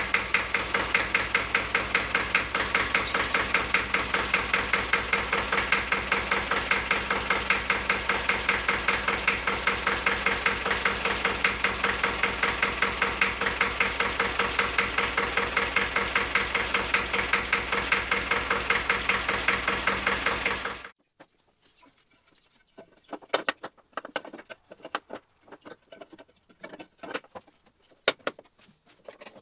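Diesel engine running with an even, rapid beat, then shut off abruptly about two-thirds of the way through, followed by light clicks and taps. One of its injector nozzles is leaking; the owner says the leak could be heard plainly before it was fixed.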